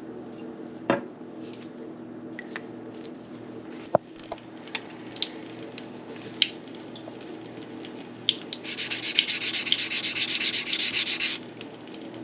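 A steel blade being worked on a whetstone: scattered scrapes and clicks, then, about two-thirds of the way in, a fast run of short scraping strokes lasting nearly three seconds. A steady low hum sits underneath.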